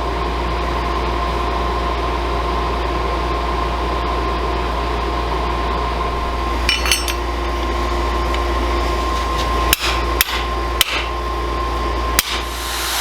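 Steady hum of running shop machinery, with a few sharp hammer strikes on steel in the second half: a couple of light taps, then four single blows spaced unevenly over the last few seconds.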